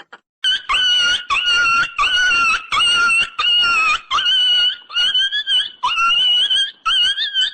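A high-pitched squealing sound effect: about a dozen short calls, each about half a second with a slight waver in pitch, repeated in quick succession.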